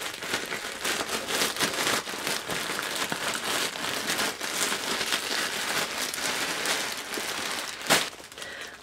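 Packaging crinkling and rustling steadily as a parcel is opened and its contents unwrapped by hand, with one sharp snap near the end.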